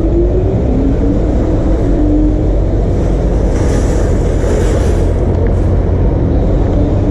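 Heavy wind buffeting on the microphone of a rider on an electric scooter moving through traffic, with steady road rumble. A faint whine rises slowly over the first couple of seconds, and a brief hiss passes in the middle.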